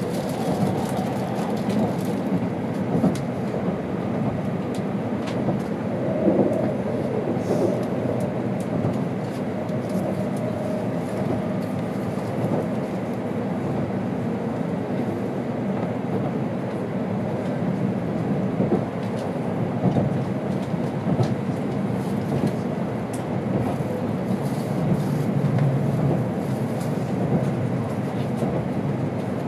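Cabin running noise of an N700 series Tokaido Shinkansen train in motion: a steady rumble with a few faint clicks.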